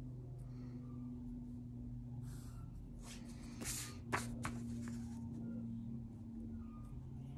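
Paper sliding and rustling on a sketchbook as a worksheet is turned and a steel ruler is repositioned, with a sharp click near the middle as the ruler is set down, over a steady low hum.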